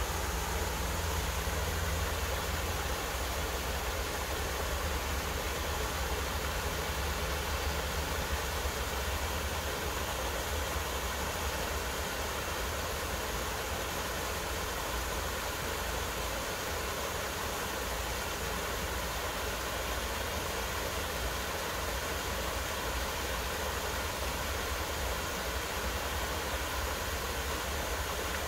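Small waterfall cascading over rock ledges into a pool: a steady rushing of water with a low rumble underneath.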